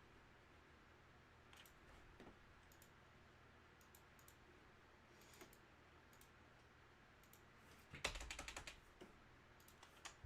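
Faint computer keyboard and mouse clicks over near-silent room tone, with a quick run of keystrokes about eight seconds in.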